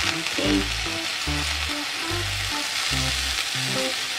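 Steak sizzling in butter and pan juices in a frying pan, a steady hiss kept up by the pan's remaining heat after the burner has been switched off. Background music with a repeating bass line plays under it.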